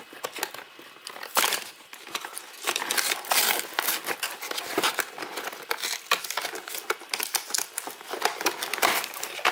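Plastic wrapping crinkling and rustling, with many small clicks, as toy play money is unpacked by hand.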